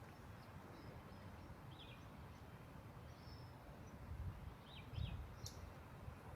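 Faint outdoor ambience: a low rumble with a few short, high bird chirps, one about two seconds in and two in quick succession near the end.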